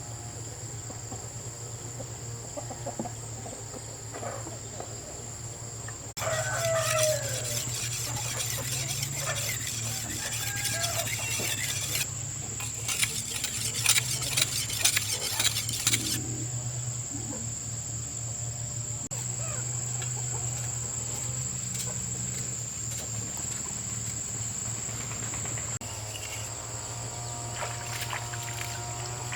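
Chickens clucking and a rooster crowing over a steady high insect drone. Between about six and sixteen seconds in there is a dense stretch of crackling, rustling noise.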